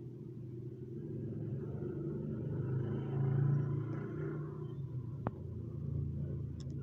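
A low rumble that swells to a peak about halfway through and then eases off, with one sharp click about five seconds in.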